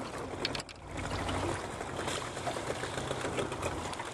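Water lapping and trickling against a kayak hull, with many small irregular clicks and knocks.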